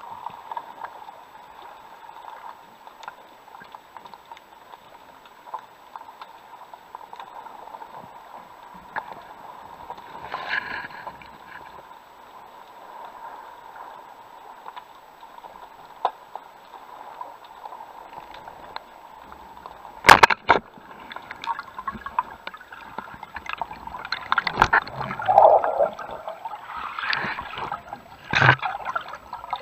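Underwater ambience heard through a camera housing: a steady hiss with a constant hum. About twenty seconds in comes a sharp double click of a speargun firing, followed by bubbling and water rushing as the diver moves up toward the surface.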